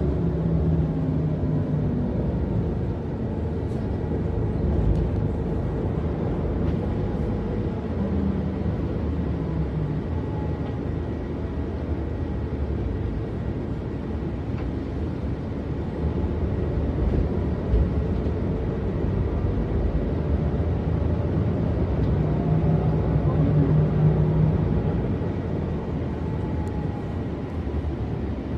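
Diesel engine of a Mercedes-Benz O405NÜ city bus running at idle, a steady low rumble with a slight swell in level late on.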